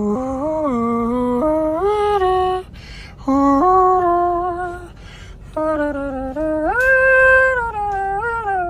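A single voice singing a melody unaccompanied, in three phrases of held notes with sliding pitch.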